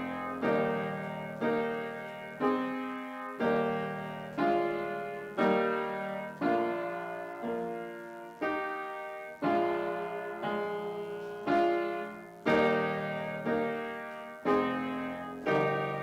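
Upright piano played slowly and evenly, a chord struck about once a second and left to ring and fade before the next.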